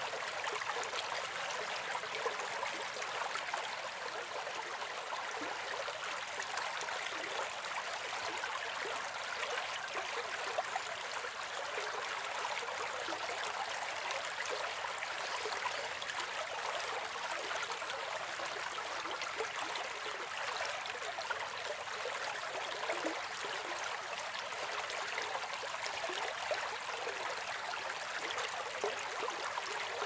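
Mountain stream running over rocks: a steady, unbroken rush of water.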